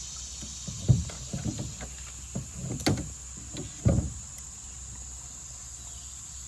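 Several knocks and thumps against a kayak, the loudest about a second in and near four seconds in, over a steady high insect drone.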